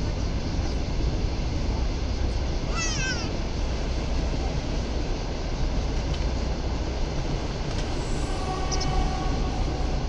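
Steady low rumble of wind on the microphone over small waves washing on pebbles. About three seconds in, a gull gives a quick run of short calls.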